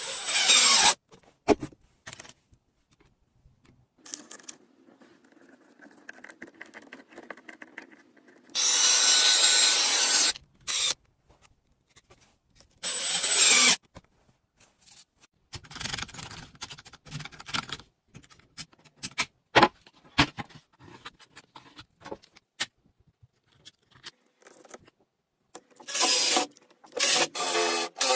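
Woodworking tool sounds: scraping and rubbing on wood, scattered clicks and taps, and several loud hissing bursts of one to two seconds each.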